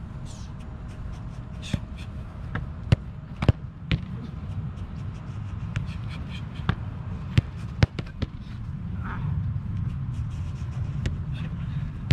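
Footballs being struck and caught by a goalkeeper, a dozen or so sharp thuds at uneven intervals over a steady low rumble.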